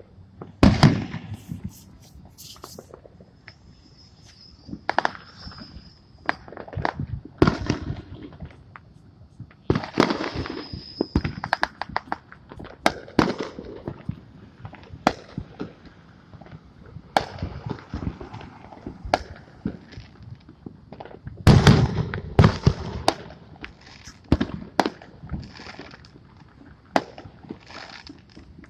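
Fireworks going off in irregular bangs and pops throughout, with a few whistles, and the loudest burst of bangs about three quarters of the way through.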